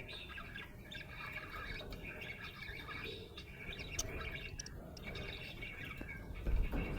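Budgerigar chirping and warbling in quick, short notes, with a low bump near the end.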